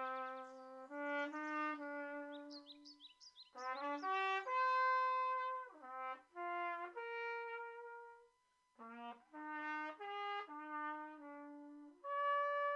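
Solo brass instrument playing a slow melody of held notes, one at a time, with short pauses about three seconds in and again about eight seconds in.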